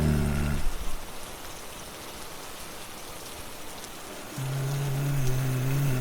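Steady rain, with low held tones of a dark music drone: one fading out within the first second and another coming in about four and a half seconds in.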